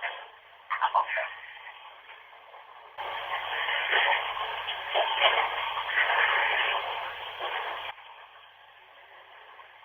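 Running bathwater recorded through a phone's microphone, heard as a thin, steady hiss. It grows louder and fuller from about three seconds in until about eight seconds.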